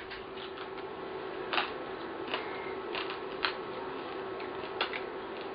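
Irregular sharp clicks and cracks, five or six in all, as fried crab is eaten from a steel plate, over a steady low room hum.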